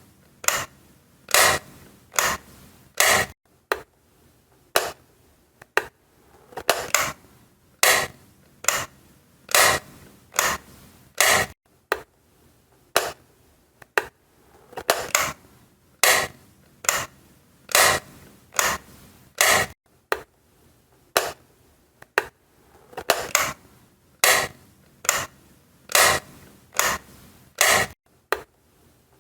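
Wall light switch flipped on and off repeatedly: a sharp plastic click every second or so, some coming in quick pairs.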